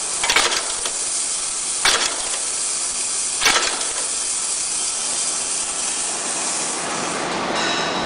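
Rivet-setting machine pressing metal rivets into a bag flap: sharp metallic strikes in the first four seconds, about a second and a half apart, over a steady hiss that fades near the end.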